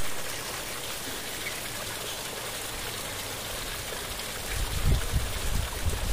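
Small mountain waterfall splashing and trickling steadily over rocks, with a few low bumps near the end.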